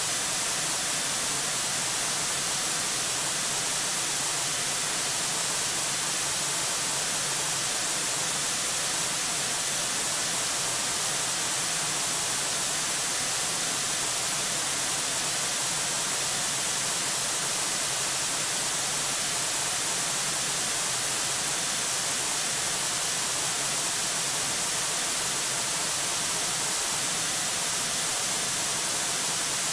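Steady hiss of static from the nest camera's microphone, even and unchanging, with no other sound standing out.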